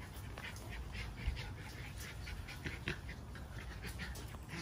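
Miniature Schnauzer puppy whimpering in short, high squeaks, several a second, over a low rumble.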